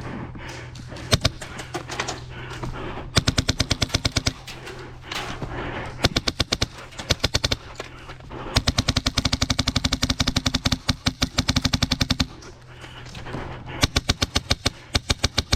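Airsoft guns firing in fully automatic bursts of rapid, evenly spaced shots, with a few single shots first; the longest burst runs for nearly four seconds in the middle.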